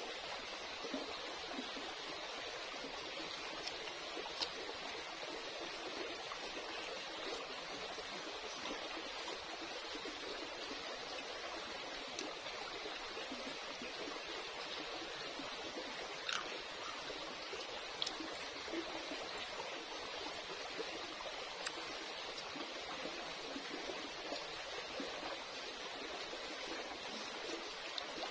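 Shallow stream flowing and trickling over rocks, a steady rush of water, with a few faint clicks now and then.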